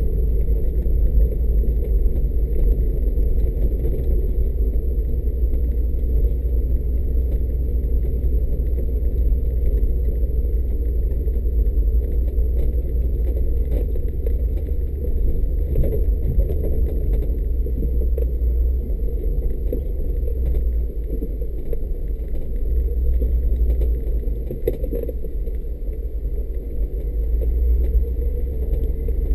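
Mercedes G500's V8 and running gear rumbling steadily as the vehicle drives along a rough off-road track, with a few short knocks and rattles.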